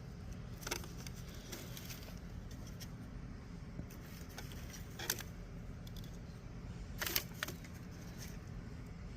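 Faint handling noises while corn seeds are planted in a pot: a few short taps and rustles, about a second in, around five seconds in and twice near seven seconds, over a steady low hum.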